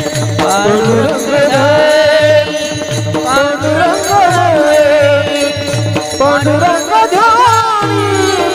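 Varkari devotional music: a lead voice sings a long, winding melodic line without clear words, over deep drum strokes about two a second and the ringing strikes of the chorus's small hand cymbals (taal).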